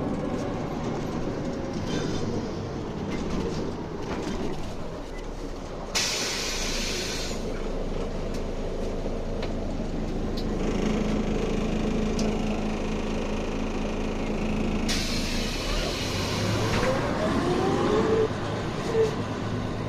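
City bus interior: the engine running steadily, with two loud hisses of compressed air from the bus's pneumatic system, about six seconds in and again about fifteen seconds in, each lasting a second or two. Near the end a rising whine as the bus speeds up.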